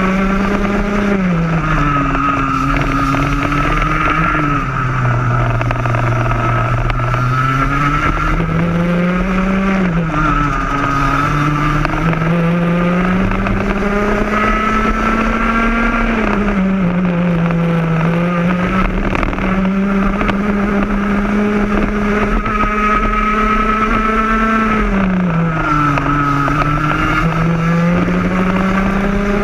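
Rotax 125 cc two-stroke kart engine heard on board under race load, its pitch dropping as the kart slows for corners and climbing again as it accelerates down the straights, with the deepest dip about five to seven seconds in.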